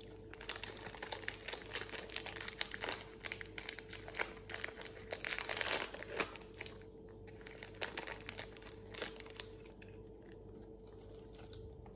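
Plastic wrapper of a Cadbury Moro Dark fun-size bar crinkling as it is torn open and peeled off the bar, loudest about six seconds in. Fewer, sparser crinkles follow as the bar comes free.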